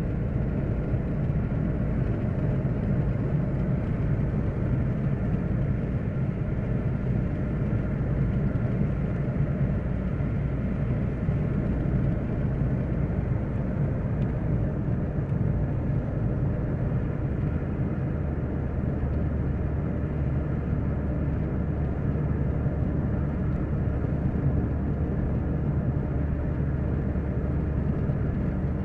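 Steady road and engine noise heard inside the cabin of a car cruising along a highway: a low, even rumble of tyres and engine. The low hum shifts a little past the halfway point.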